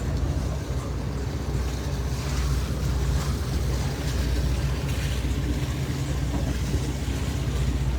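Motorboat engines idling with a steady low hum, with wind noise on the microphone.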